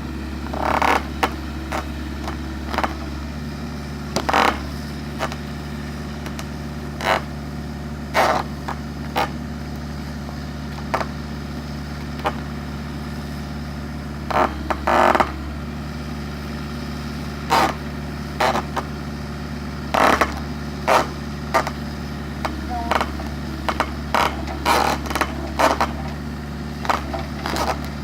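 Diesel engine of an excavator running steadily at idle, with short, sharp scrapes and knocks coming every second or two.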